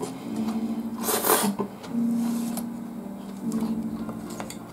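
Spaghetti in meat sauce slurped into the mouth in one short, noisy slurp about a second in, followed by a few light clicks of a fork on the plate. Soft background music with long held notes plays underneath.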